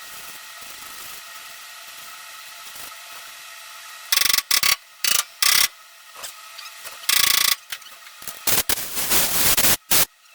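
A power tool run in a series of short trigger bursts, starting about four seconds in and cutting on and off sharply, the longest about a second, near the end.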